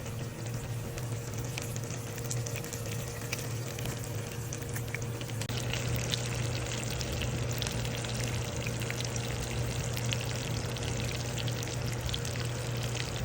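Steak frying in a hot pan, a steady sizzle with many small crackling pops that grow a little louder about five seconds in, over a steady low hum.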